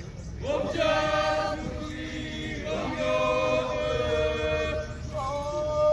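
A troupe of Naga men chanting together in long held notes, three sustained phrases with short breaks between them.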